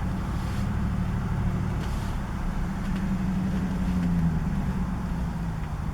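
A car driving, heard from inside the cabin: a steady low rumble of engine and road noise, swelling slightly about halfway through.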